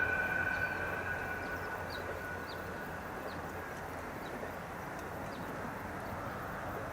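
KiHa 40 and KiHa 54 diesel railcar train moving away after passing, its horn tone dying out in the first few seconds. The rumble of the train on the rails then fades slowly.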